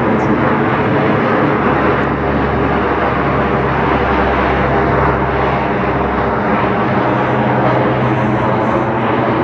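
Lockheed C-130 Hercules flying low, its four turboprop engines and propellers giving a loud, steady drone with a low hum; the deepest part of the hum fades about two thirds of the way in.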